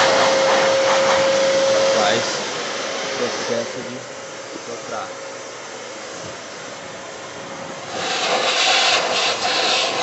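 Stihl SE 33 wet/dry vacuum's 1400-watt motor running with a steady whine and a loud rush of air, the hose fitted to its blower port. The air noise drops about two seconds in and grows louder again near the end as the nozzle is turned on the floor.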